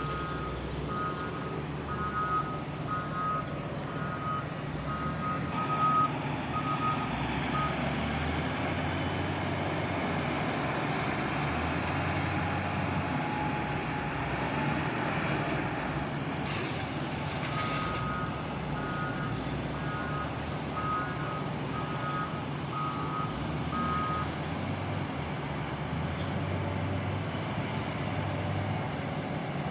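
A heavy construction vehicle's diesel engine running steadily while its reversing alarm beeps at a steady pace, about one and a half beeps a second. The alarm sounds for the first seven or eight seconds, stops, and comes back for about seven seconds in the second half.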